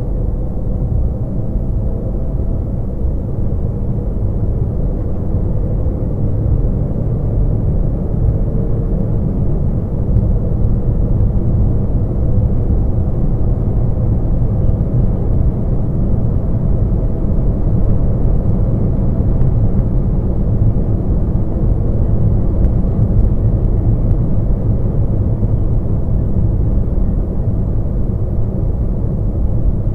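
Car driving at motorway speed, heard from inside the cabin through a dashcam's microphone: a steady low rumble of road and engine noise that grows a little louder as the car speeds up.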